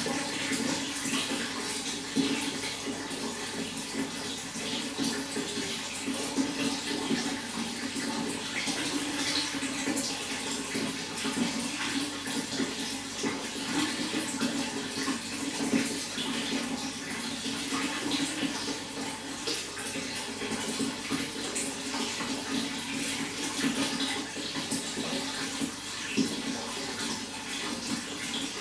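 Running water flowing steadily, with many small quick splashes and trickles on top of an even rush.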